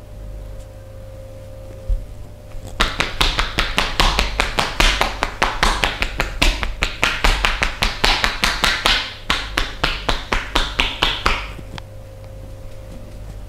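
Rapid percussive massage strokes: hands slapping and chopping on the body, about five quick strikes a second. They start about three seconds in and stop a couple of seconds before the end.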